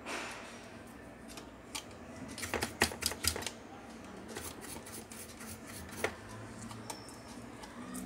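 Hand tools and small parts being handled during a wiring repair: a quick run of sharp clicks and taps about two and a half seconds in, with a few single clicks scattered after.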